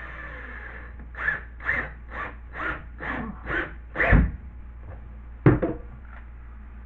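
Seven quick rasping strokes on drywall, about two a second, followed a second later by one sharp knock.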